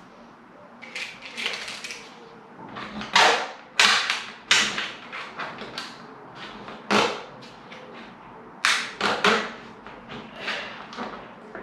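About a dozen irregular, sharp knocks and clicks on a UPVC window frame as plastic glazing packers are pushed and tapped in around the double-glazed unit. The loudest strikes come a few seconds in.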